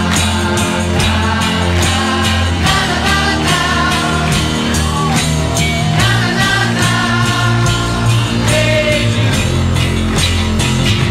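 Background music: a pop-rock song with a sung melody over a steady beat.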